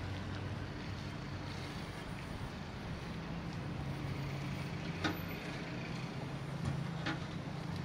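A motor vehicle engine running nearby at a steady low hum that rises a little about three seconds in, over street noise. Two sharp clicks come about five and seven seconds in.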